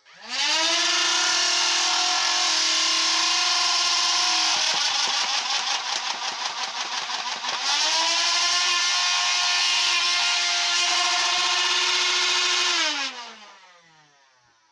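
Modified Nerf Rapidstrike's flywheel motors spin up with a rising whine and run at a steady high whine. About four and a half seconds in, the pusher motor empties the 18-dart magazine on full auto in around three seconds, a fast clatter of about six darts a second while the flywheel whine drops in pitch under the load. The flywheels then pick back up and wind down with a falling whine near the end.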